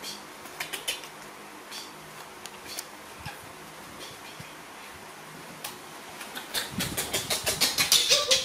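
Steady room hiss with scattered light ticks and rustles. From about six and a half seconds in comes a quickening run of breathy bursts, several a second and growing louder, as a woman breaks into laughter.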